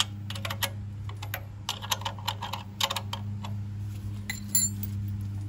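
Irregular small metallic clicks and clinks of hand tools and bolts being handled while mounting a pump, over a steady low hum.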